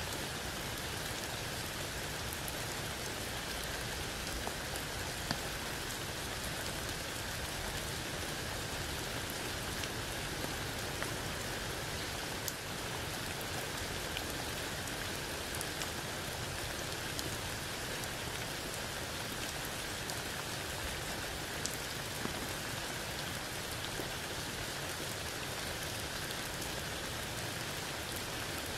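Steady rain falling through tree leaves onto wet ground and a puddle, with occasional single drops ticking sharply.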